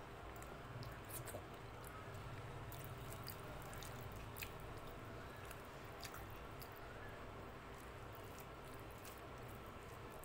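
Fingers mixing rice with dal by hand on a plate: soft, wet squishing with scattered small clicks, and faint chewing.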